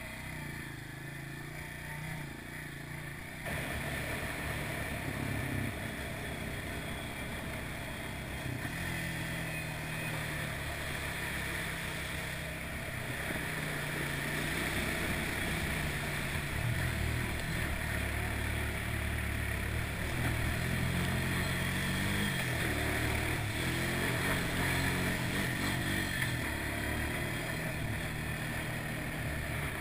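ATV (quad bike) engine running under way, its pitch rising and falling with the throttle, with a sudden jump in loudness about three and a half seconds in. Midway through, water splashes and sprays as the quad drives through a large puddle.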